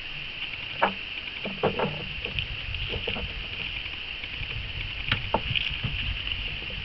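Tissue paper rustling and crinkling in short bursts, with a few sharp clicks, as a pet hamster pulls and climbs over it while building its bed, over a steady high hiss.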